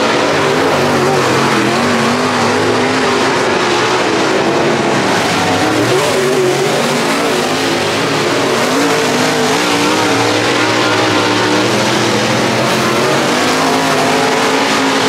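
Dirt late model race cars running at speed on a dirt track, their loud engine note rising and falling steadily through the laps.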